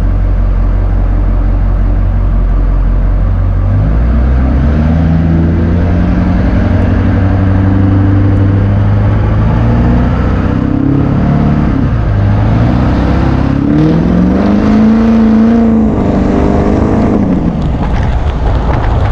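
Duramax diesel pickup engine idling, then pulling away about four seconds in and accelerating, its pitch rising and falling as it works up through the gears.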